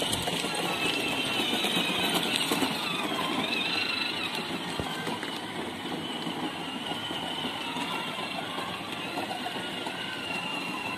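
Electric ride-on toy jeeps driving over paving blocks: a steady, slightly wavering motor whine over the rumble of their hard plastic wheels, a little louder in the first few seconds.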